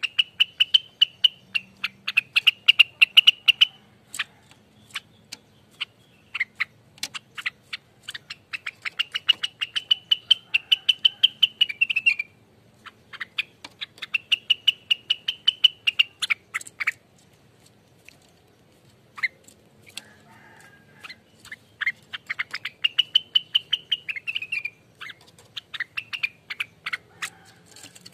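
Rengganis (cucak wilis, a leafbird) singing its fast, noisy 'ropel' song: bouts of a few seconds of rapid chattering, rattling notes, about five bouts with short pauses between.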